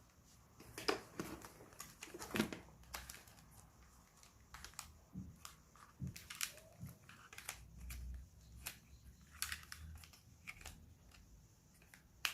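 Hands handling a microphone kit and its packaging: scattered small clicks, taps and crinkling rustles at an uneven pace.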